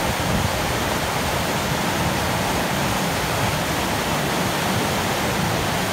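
River rapids: fast white water rushing and churning over boulders in a loud, steady roar.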